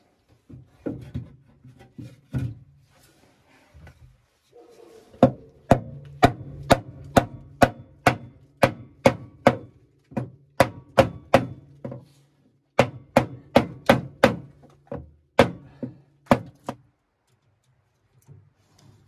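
A 32-ounce hammer pounding pressure-treated 2x6 boards down into a tight-fitting metal frame: a few blows at first, then a long run of steady strikes about two a second, with a short pause midway.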